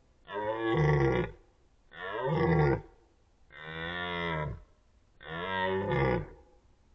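Red deer stag roaring during the rut: four deep, drawn-out bellows of about a second each in quick succession.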